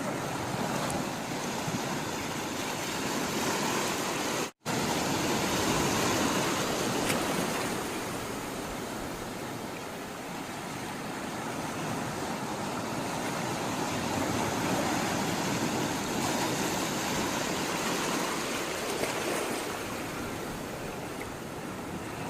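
Sea water rushing and washing in a steady wash of noise that swells and ebbs slowly over several seconds. The sound cuts out for a split second about four and a half seconds in.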